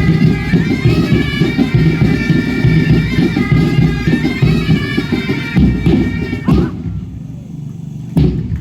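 Music accompanying a kukri dance: a melody held over a steady drone, with a drum beat. The music stops about seven seconds in, and a single thump follows near the end.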